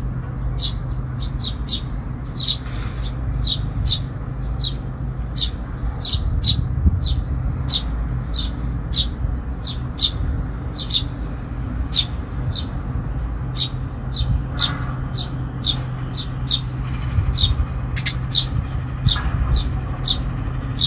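Eurasian tree sparrow chirping in short, high calls repeated about two to three times a second, the persistent begging calls of a fledgling asking to be fed. A steady low hum runs underneath.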